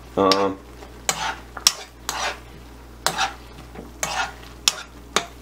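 A utensil stirring and scraping through thick jajang sauce, rice cakes and noodles in a nonstick pan as it simmers. It comes in separate strokes, about one every half second to a second.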